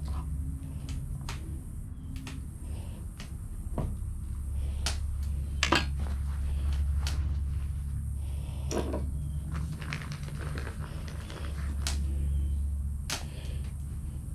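Scattered sharp clicks and light knocks at irregular intervals over a steady low rumble.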